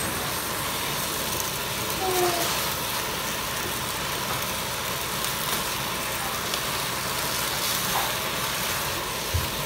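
Steady sizzling of instant noodles with beef and broccoli stir-frying in a wok as they are tossed with a wooden spatula.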